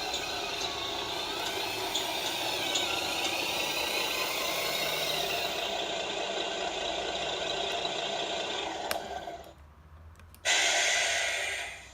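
RC scale truck (Tamiya Cascadia) running with its engine-sound module, a steady mechanical hum and rattle that dies away, followed near the end by a short loud hiss that starts suddenly.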